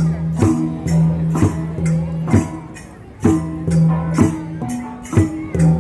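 Bahnar gong ensemble (cồng chiêng) playing: overlapping ringing gong tones over a steady beat of strikes about once a second, each strike with a bright metallic edge.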